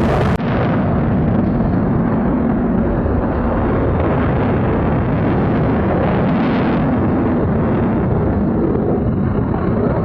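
F-35B's Pratt & Whitney F135-600 afterburning turbofan, a loud steady jet rumble as the fighter flies its display. There is a brief dropout about half a second in.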